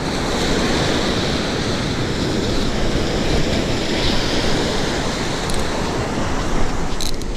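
Surf breaking steadily on a sandy beach, with wind on the microphone; a few short clicks come near the end.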